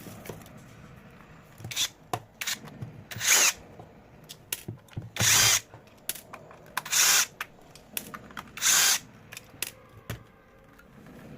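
Electric screwdriver running in four short bursts, backing screws out of a vacuum cleaner battery pack's plastic casing, with small clicks and knocks of handling between.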